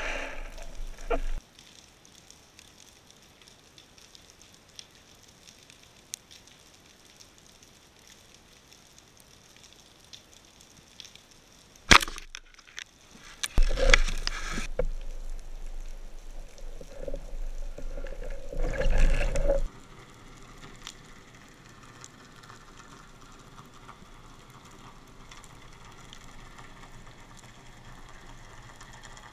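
Underwater noise heard through a diver's camera: faint scattered crackling, with one sharp loud knock about twelve seconds in. Then about six seconds of loud bubbling and water rush, after which the quiet crackling returns.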